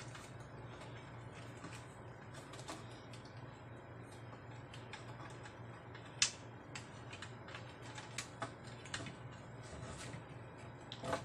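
Scattered light clicks and taps as the finned aluminium heatsink board and ribbon cable connectors of a Behringer Europower EP4000 power amplifier are handled and fitted back in place, the sharpest click about six seconds in. A steady low hum runs underneath.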